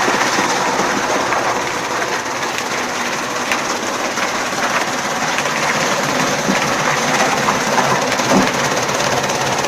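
Chaff cutter running: a loud, steady mechanical noise with scattered sharp clicks.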